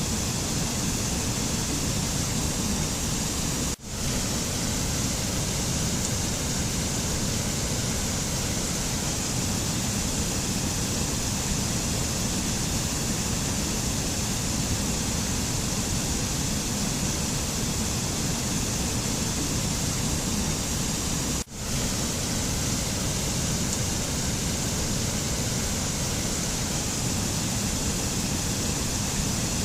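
Steady, even rushing noise of a mountain nature-sound track, with no tones or rhythm. It cuts out for a split second twice, about four seconds in and about twenty-one seconds in.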